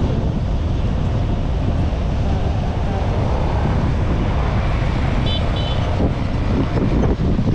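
A motorcycle riding along a road, its running noise mixed with wind buffeting the helmet-mounted microphone. Two short high beeps sound about five seconds in.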